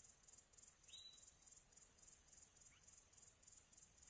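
Near silence: faint natural ambience of insects chirring in an even pulse, with a faint short chirp about a second in.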